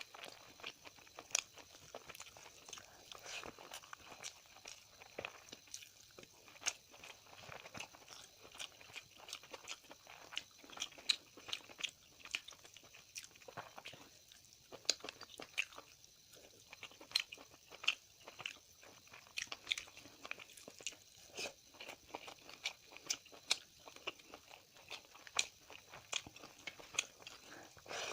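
A person eating close to the microphone: chewing and biting, with many sharp, irregular crunches.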